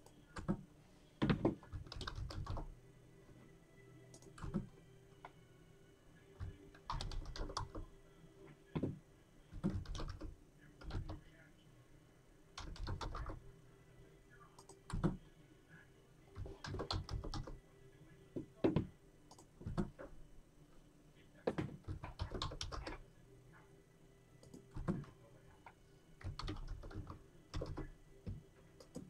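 Computer keyboard typed on in short bursts of rapid keystrokes, with pauses of a second or two between bursts.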